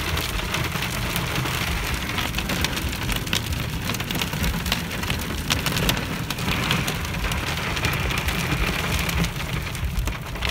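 Freezing rain and ice striking a truck's windshield and roof, heard from inside the cab: a dense, steady spray of small ticks over a low rumble.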